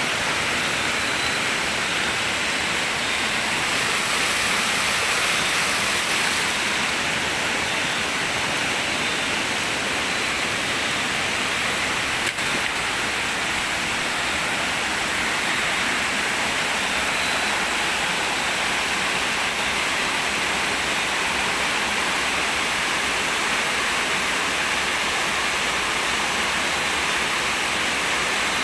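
A small rocky stream, its water rushing and splashing steadily and loudly close by.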